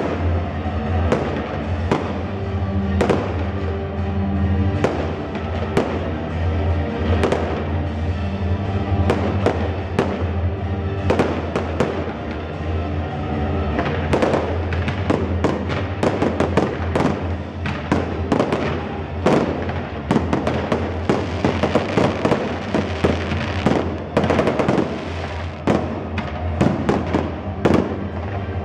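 Fireworks display: aerial shells bursting one after another, the bangs coming thicker and faster from about halfway through, with music playing underneath.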